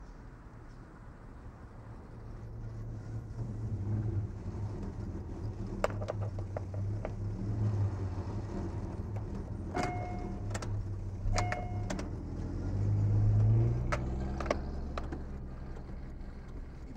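Car engine running with a low hum that grows louder a couple of seconds in and swells further near the end, with scattered clicks and two short beeps about a second and a half apart.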